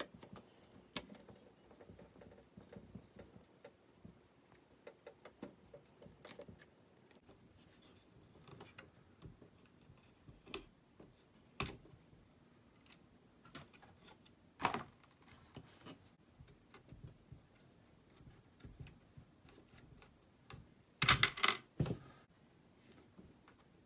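Scattered light clicks and taps of a small screwdriver, fingers and metal and plastic parts while an M.2 WiFi card is unscrewed and its antenna leads are unclipped, with a louder burst of clicks and clatter near the end as the card is lifted from its slot.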